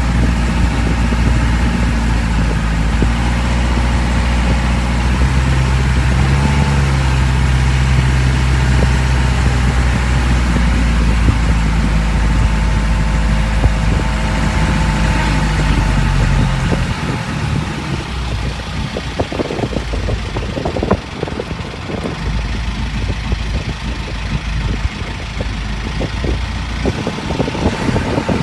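A boat's engine running steadily. About halfway through, the low drone drops away and choppier, uneven knocking noise takes over.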